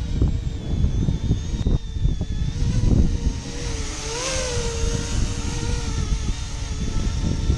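E-flite Convergence model aircraft's electric motors and propellers whining steadily, the pitch swelling and rising about four seconds in as it comes close. Heavy wind buffeting on the microphone rumbles underneath.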